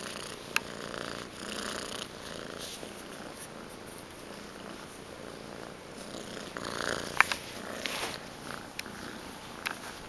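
Young gray tabby domestic shorthair kitten purring steadily while being petted at close range. A few sharp clicks and rustles sound over the purr, the loudest a little past the middle.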